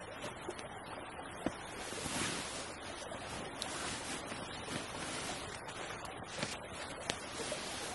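Steady rushing of a small creek, with scattered sharp clicks.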